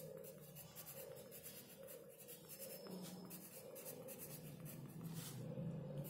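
Pencil scratching on sketchbook paper in many short writing strokes, over a faint steady low hum.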